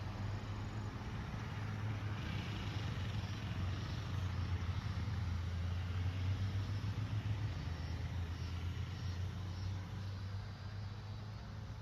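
A motor vehicle's low engine hum, swelling to its loudest about halfway through and easing off toward the end.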